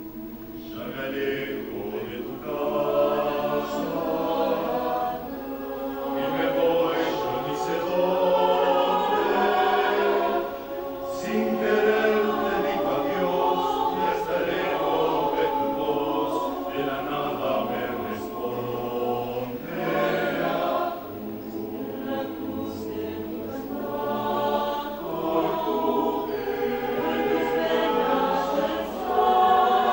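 Mixed choir of women's and men's voices singing together in parts, the sound swelling and falling between phrases.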